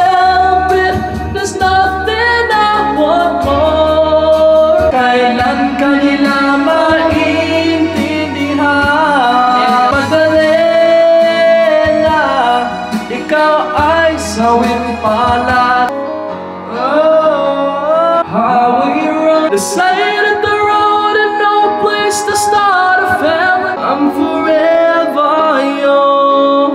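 A man singing karaoke into a handheld microphone over a music backing track.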